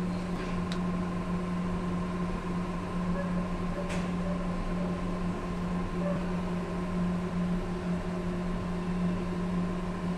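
Steady mechanical hum with a faint higher tone above it, and a single faint click about four seconds in.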